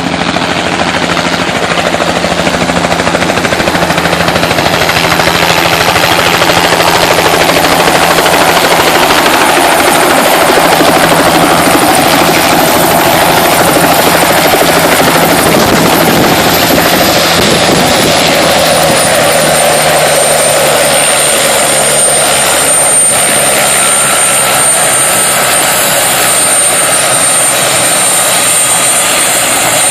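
Helicopter running loud and steady, heard from inside the cabin, with a thin high whine that slides down in pitch a little past halfway and then holds steady.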